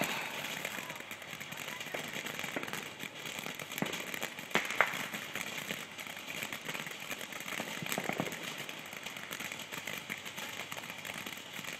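'Fat Cat' firework fountain burning, a steady hiss of sparks scattered with crackling pops, the sharpest pop a little under five seconds in.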